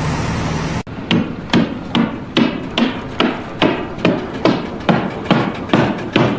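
A steady noise with a low hum that cuts off abruptly about a second in, then a hammer striking in a steady rhythm, about two or three blows a second, each with a short ring.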